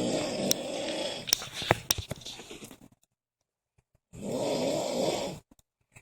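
Heavy snoring: a long snore with sharp crackles through it that dies away about three seconds in, then after a pause a second, shorter snore of about a second.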